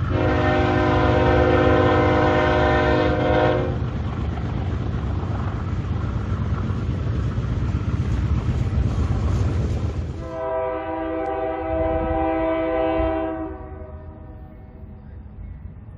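Freight train passing: a locomotive air horn sounds a long chord for about three and a half seconds, then the freight cars rumble and clatter along the track. About ten seconds in, a second long horn blast sounds for about three seconds, and then the sound drops away.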